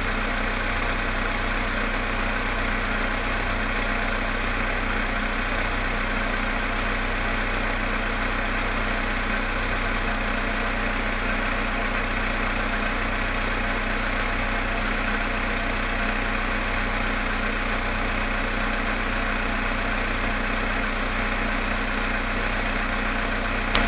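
Volkswagen Polo Sedan engine idling steadily, still cold after standing 19 hours at about +1.5 °C, with the knock of a cold engine.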